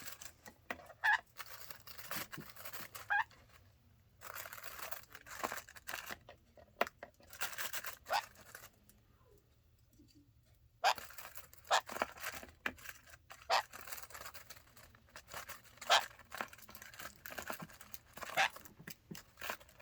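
A cockatiel and a Jenday conure pecking and tugging at a lint bag: irregular crinkling and rustling with sharp clicks, and a lull of about two seconds about halfway through.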